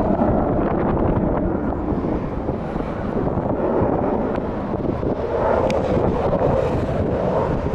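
F-16 Fighting Falcon's jet engine rumbling during a display pass, mixed with wind buffeting the microphone; the rumble swells a little late on.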